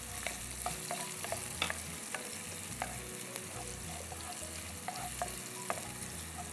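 Chopped onions and curry leaves frying in hot oil in a nonstick kadai, sizzling steadily, while a spatula stirs them with scattered light scrapes and taps against the pan.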